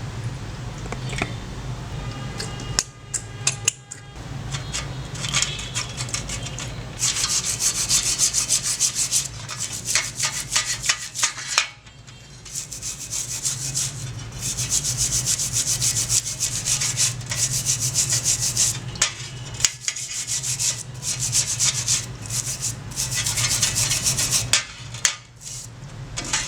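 Rapid back-and-forth abrasive rubbing on the rusty pruners, in runs of a few seconds with short pauses between them, over a low steady hum.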